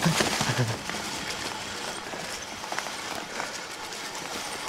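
Fat tires of an electric bike rolling over dry leaves on a bumpy dirt trail: a steady rough noise with scattered small knocks and rattles from the bike.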